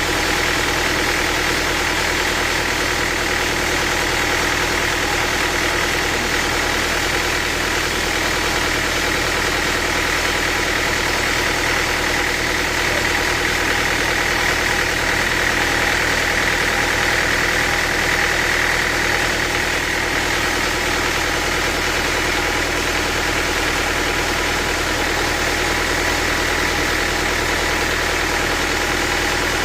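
Sawmill machinery running steadily, with a constant high whine over a steady mechanical drone.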